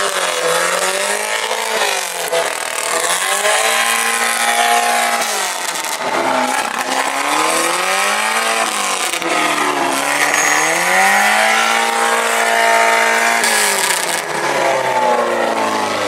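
Loud engine with a barely silenced, straight-through exhaust being revved hard about four times, each rev rising, held at high revs for a second or two, then dropping back.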